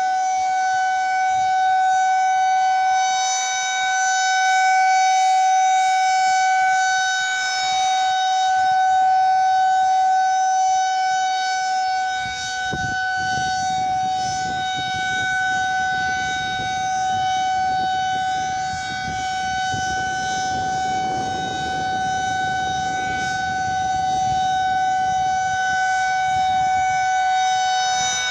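Civil defense outdoor tornado warning sirens sounding a steady alert tone during a weekly test: one held pitch that does not rise or fall, its loudness slowly swelling and fading.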